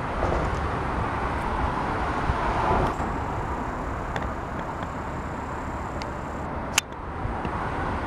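Road traffic noise from the Nagasaki Expressway viaduct overhead and the road beneath it: a steady rush of passing vehicles that swells now and then, with no chime playing. A single sharp click comes about seven seconds in.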